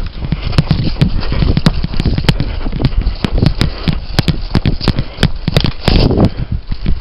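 Footsteps crunching through dry leaves and brush, with irregular thumps and many scattered sharp snaps, and a burst of rustling about six seconds in.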